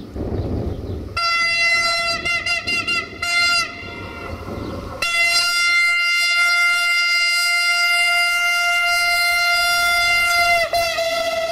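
Train horn sounding on one steady pitch: a short blast, a quick series of broken toots, then after a pause one long held blast. A low rumble of the train is heard at the start.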